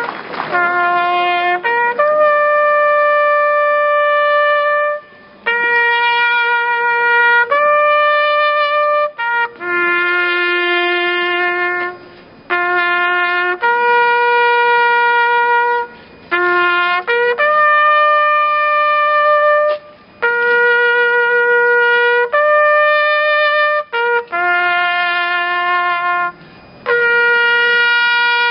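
Bersaglieri brass fanfare of trumpets playing a march tune in unison, held notes in short phrases separated by brief breaks.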